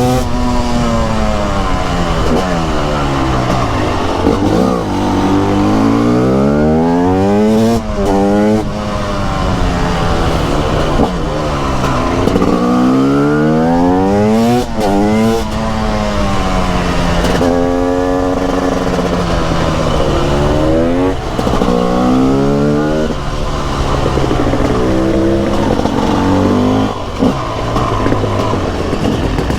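Single-cylinder two-stroke motorcycle engine under way, revving up hard and dropping back again and again, with rising sweeps as it accelerates and falls in pitch as the throttle closes for the next bend.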